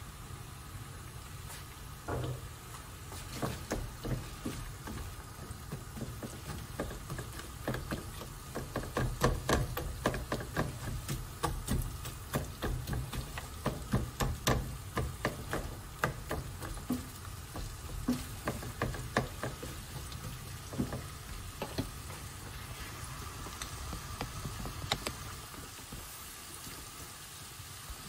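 Sliced onions and carrots sizzling in a frying pan, stirred with a spatula that clicks and taps against the pan many times from about two seconds in, easing off about twenty seconds in. A steady low hum runs underneath.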